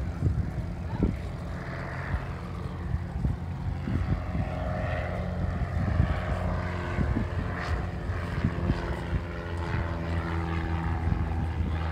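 Light single-engine propeller airplane flying overhead during an aerobatic routine, its engine droning steadily with small shifts in pitch.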